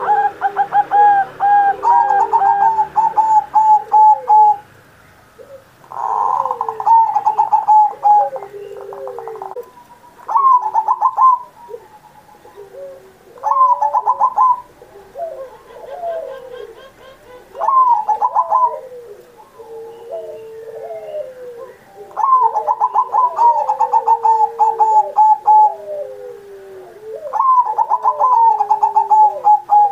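Zebra dove (perkutut) singing its cooing song: phrases of rapid, evenly spaced notes repeat every few seconds, some longer and some short. Faint high chirps of small birds come in between.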